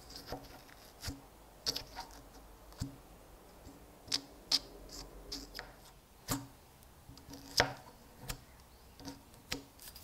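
A thin metal pick scraping and clicking against the metal of an old trench lighter's body as it digs rusted crust and old wick fibres out of the wick hole, in short irregular strokes.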